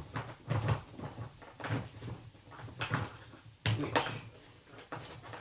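Plastic hose and attachment of a Hoover Aquajet 5000 being handled and pushed together: a run of irregular knocks and clicks, the loudest a little under a second apart near the middle.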